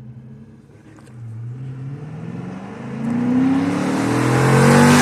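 Car engine accelerating, its pitch climbing and the sound growing louder from about three seconds in.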